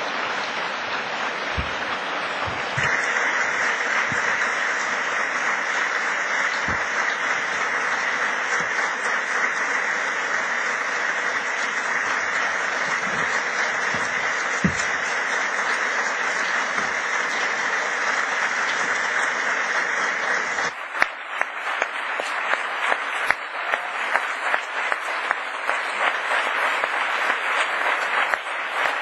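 Large audience applauding steadily, growing louder about three seconds in. Around twenty seconds in the applause thins, with individual claps standing out more.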